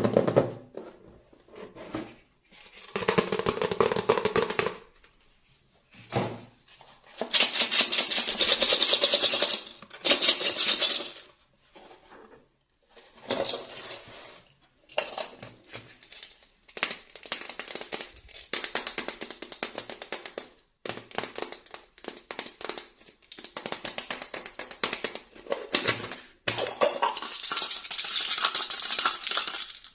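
Hands handling a doll and its plastic packaging: irregular bursts of rustling and crinkling with scattered clicks and taps, stopping and starting every second or two.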